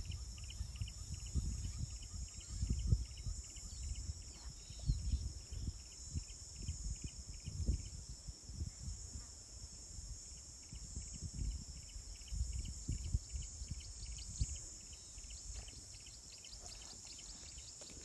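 Insects in grassland: a steady high-pitched drone with a repeated chirp about four times a second that pauses for a couple of seconds midway. Under it runs a low, gusty rumble on the microphone, which is the loudest part.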